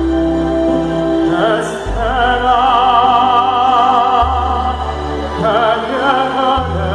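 Live operatic singing, long held notes with a wide vibrato, over orchestral accompaniment with a deep bass line, heard through an arena's concert sound system.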